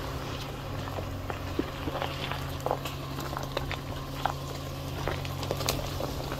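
285/70R17 tyres on a 2022 Nissan Frontier crawling slowly over loose rock and gravel, with irregular crunches and pops of stones under the tread. The 3.8-litre V6 runs with a steady low hum underneath.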